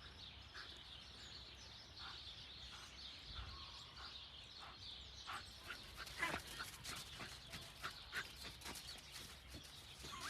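Faint, irregular short chirping calls from an animal, more frequent in the second half, one of them sliding downward in pitch.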